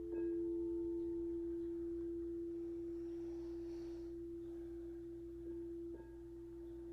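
Quartz crystal singing bowl ringing one steady pure tone, with a fainter higher tone above it, slowly fading. It is softly struck again just after the start and once more near the end.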